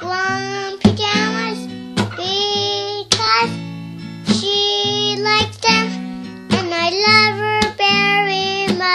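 A young girl singing improvised lyrics over a strummed guitar chord progression.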